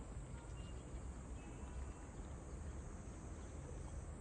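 Faint steady background noise: a low rumble with an even high hiss, and no distinct events.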